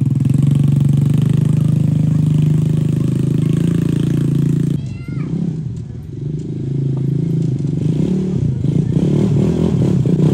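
ATV (quad bike) engine running as it is ridden along a dirt track, a steady hum at first. After a cut about five seconds in, it starts quieter and grows louder as the quad approaches.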